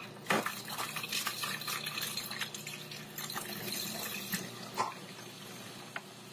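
Cuisinart 14-cup food processor running, its blade chopping wet tomato and cilantro as garlic and jalapeño are dropped in through the feed tube. A steady motor hum sits under a busy clatter of pieces hitting the blade and bowl, which thins out after about five seconds.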